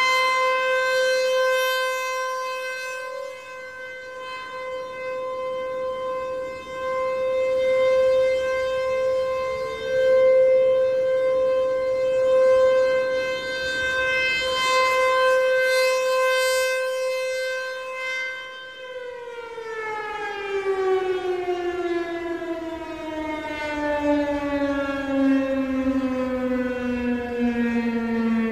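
American Signal Tempest T-135 AC/DC rotating outdoor warning siren sounding its steady Alert tone, swelling and fading as the horn sweeps around. About two-thirds of the way through it cuts off and winds down, its pitch falling steadily.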